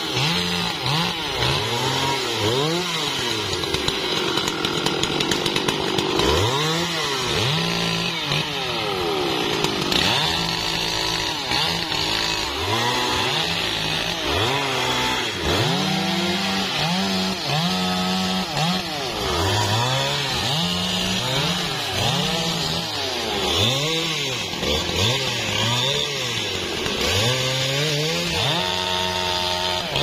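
Two two-stroke chainsaws, a Husqvarna 395 XP and a Stihl, cutting felled teak logs. The engines rev up and fall back again and again as the chains bite and are eased off, with the two saws' pitches overlapping.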